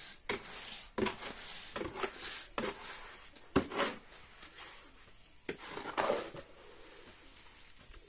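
Steel shovel scraping and chopping through wet cement mortar in a metal wheelbarrow, a rough scrape about once a second, with one sharp knock about three and a half seconds in.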